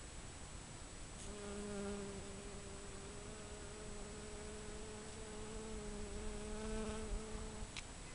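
A bee buzzing: a steady hum with a slight waver in pitch that starts about a second and a half in and stops shortly before the end.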